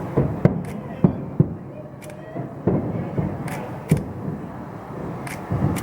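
Aerial fireworks bursting in quick succession, a dozen or so sharp bangs at uneven intervals during a fireworks finale.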